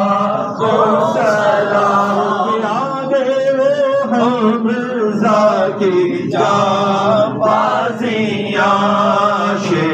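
Male voices chanting a melodic recitation, with long held notes that waver in pitch over a steady low hum.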